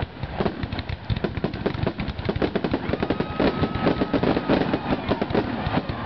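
Fireworks finale: a dense, rapid barrage of aerial shell bursts and crackling reports, many overlapping bangs a second.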